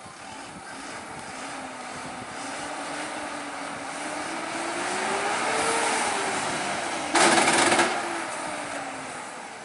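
A heavy truck's diesel engine working hard on a steep climb, its pitch and loudness rising to a peak and then falling away. About seven seconds in, a short loud burst of hiss cuts across it.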